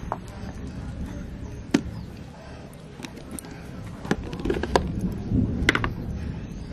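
Plastic food tub being handled and its lid pried off, giving a few sharp clicks and knocks, over a low rumble of wind on the microphone.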